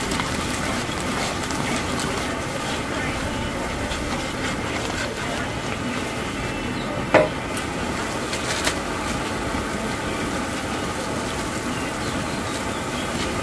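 Steady rushing noise of a gas burner under a cooking pot, with one sharp clack of a utensil on the pot about seven seconds in and a lighter one a second and a half later.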